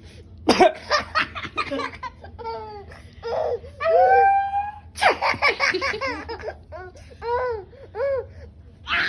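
Baby laughing hard in strings of short, high-pitched bursts, with one longer drawn-out squeal about four seconds in.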